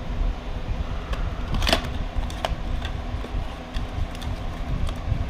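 Steady low rumble with a few light clicks and one sharper metallic clink about 1.7 seconds in, from parts and tools being handled while working on the motorcycle.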